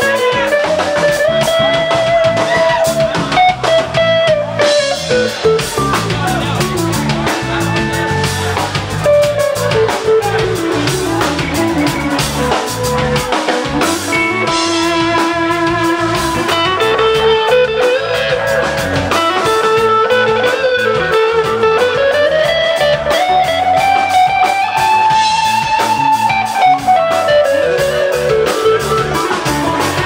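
Live band music: an instrumental passage with a lead guitar line that climbs and falls over drum kit and bass.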